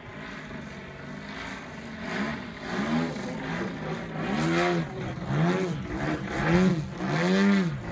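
Engine and propeller of a 2.7 m Pilot RC 330 SV aerobatic model airplane in flight. The pitch is fairly steady at first, then from about two seconds in it swells up and down in repeated arcs, a little more than once a second, growing louder toward the end.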